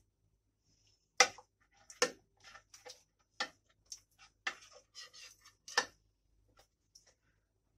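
A metal ladle clicking against a glass baking dish while béchamel sauce is ladled in and spread: a handful of sharp clinks, with softer taps and scrapes between them.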